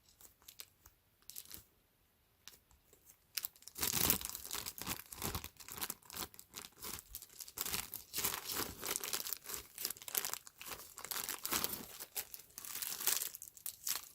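A squishy's thin plastic wrapper crinkling and tearing as it is handled and opened by hand. A few light crackles come first, then steady crinkling from about three and a half seconds in until just before the end.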